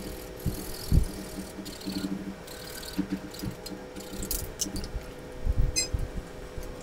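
A hacksaw blade cutting PVC pipe by hand, in short irregular strokes, with a few knocks as the pipe is handled.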